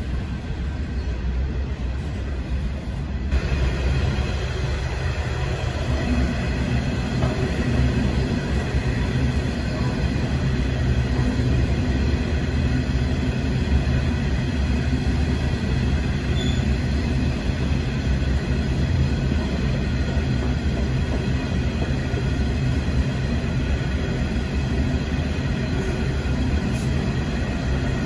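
Long freight train of steel coal hopper wagons rolling steadily past, with the continuous rumble of wheels on rail and the low drone of a diesel locomotive underneath. It gets louder about three seconds in and then holds steady.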